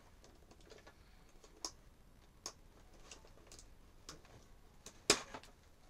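Scissors snipping at the plastic fastenings that hold toy oars in their packaging: a few scattered sharp clicks, the loudest about five seconds in.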